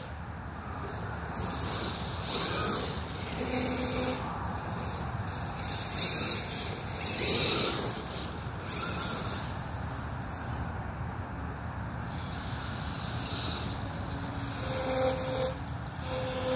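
Losi DBXL-E 2.0 electric buggy with a Castle Mamba XLX and a 2028 sensored brushless motor driving on grass. The motor whines in repeated swells as it speeds up and slows down.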